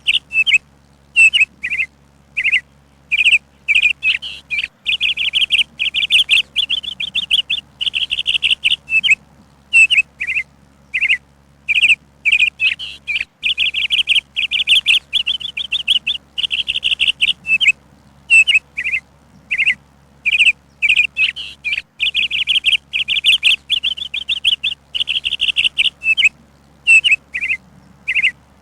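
Songbird singing: quick high chirps and rapid trills in short phrases, a second or two each, with brief pauses between them.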